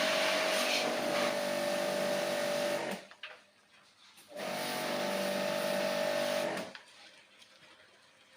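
Electric pressure washer's motor and pump running with a steady hum and the hiss of its water jet. It cuts off about three seconds in, runs again a second and a half later for about two seconds, then stops.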